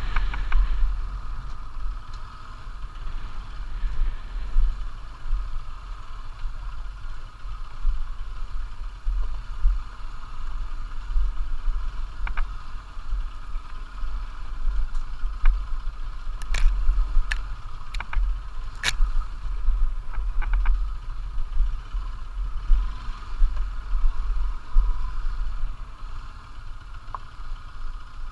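Bajaj Pulsar RS 200 motorcycle ridden slowly over a rough dirt track: a steady low rumble of engine and ride noise, with a handful of sharp knocks a little past the middle.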